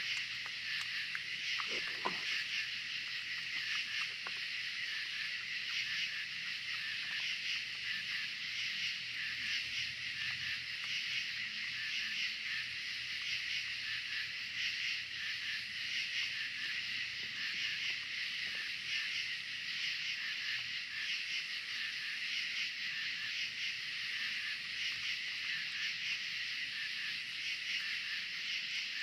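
A dense, steady, high-pitched chorus of night insects, unbroken throughout, with a couple of faint knocks about two seconds in.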